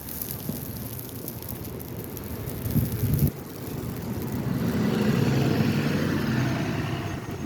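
Storm wind gusting and buffeting the microphone. A loud gust cuts off suddenly a little before halfway, then the wind swells again.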